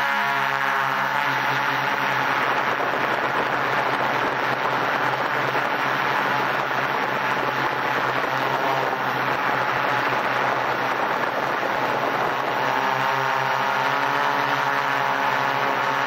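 Quadcopter's four electric motors and propellers buzzing steadily in flight, heard close up from beneath the drone. The even hum breaks up into a rougher, noisier sound through most of the middle and settles back into a clear hum near the end.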